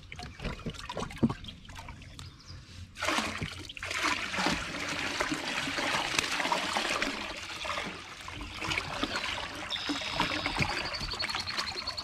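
Water pouring and splashing into a pond as grass carp are released into it, the rush starting suddenly about three seconds in after a few light knocks. A thin, high warbling tone near the end.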